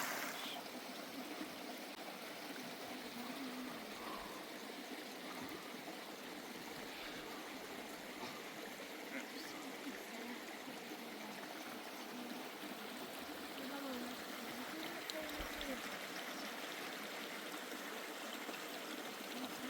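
Steady rush of running water from a spring-fed stream, with faint voices talking in the background.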